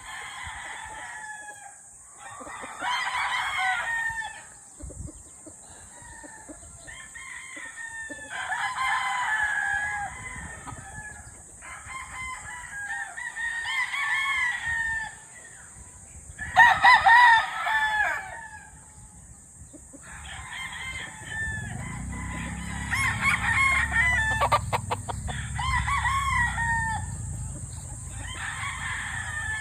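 Young rooster (stag) crowing again and again, a crow every few seconds, the loudest about halfway through. A steady high hiss runs underneath, and a low rumble joins in about two-thirds of the way through.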